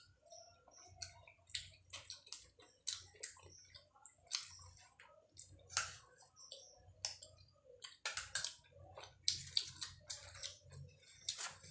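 Chewing and wet mouth clicks of people eating luchi (puffed fried flatbread) with potato curry and ghugni by hand, with soft crackles as the bread is torn, coming as many short, irregular clicks.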